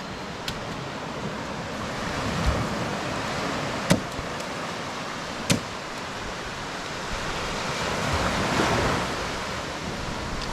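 Rushing water, a steady hiss that swells twice, with a few sharp clicks in between.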